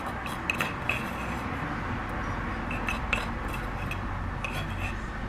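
Knife scraping crushed garlic out of a wooden mortar into a bowl, with a few light scrapes, clinks and knocks scattered through.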